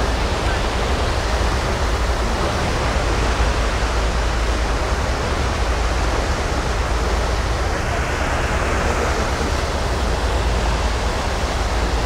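Steady rushing of a car ferry's propeller wake churning astern, with a deep low rumble underneath.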